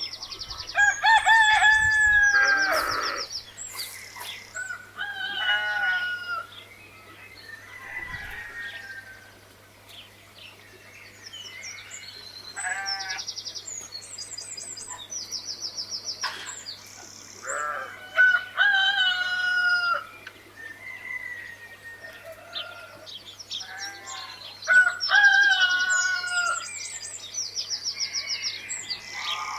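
Roosters crowing several times, with chickens clucking and quick high-pitched chirps between the crows.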